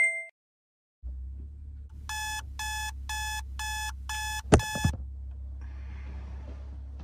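An alarm beeping in short pulses, about two a second, six in all, stopping with a knock at about five seconds as it is switched off. A low steady hum runs underneath, and soft rustling follows the alarm. The tail of a short chime fades at the very start.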